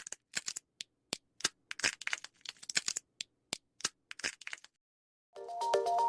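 A run of irregular sharp cracks and clicks, some in quick clusters, stopping a little before five seconds in; a melodic chiming tune starts about five and a half seconds in.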